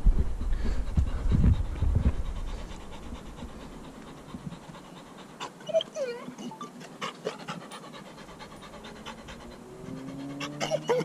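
Labrador puppy panting in quick, even breaths, with a short whine about six seconds in. Low rumble of handling noise on the microphone in the first two seconds.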